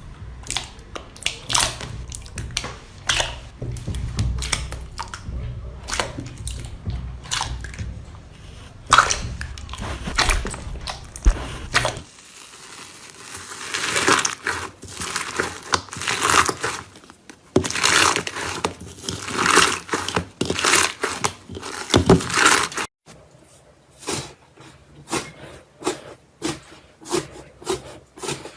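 Slime being squeezed and worked by hand, with a dense run of short clicking pops and squishes. The sound changes abruptly twice as a different slime takes over.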